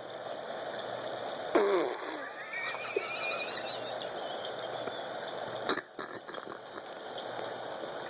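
Baby blowing a wet raspberry, with a short vocal buzz that falls in pitch about a second and a half in, followed by faint high wavering squeals.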